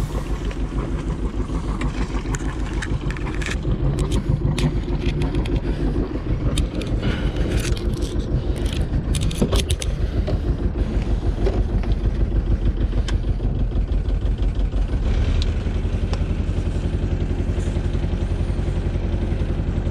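A sailboat's auxiliary motor running steadily under way, pushing the boat along below full throttle. A few light knocks and rattles come in the first half, and the engine gets a little heavier in the low end about three-quarters through.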